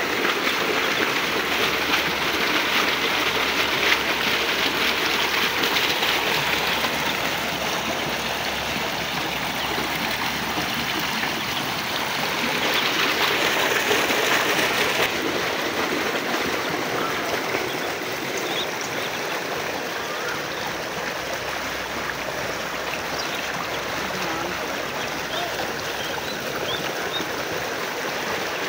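Water running steadily along a shallow irrigation channel, a continuous rushing sound that swells twice in the first half.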